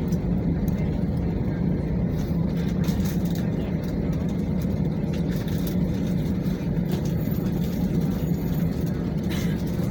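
Steady cabin rumble inside an Airbus A320 taxiing after landing, with a low hum from the idling engines and air systems.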